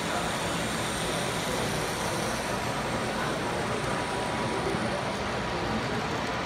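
N scale model train running past close by: a steady rolling and motor hum from its wheels on the track, with a faint steady whine, over a constant hall background noise.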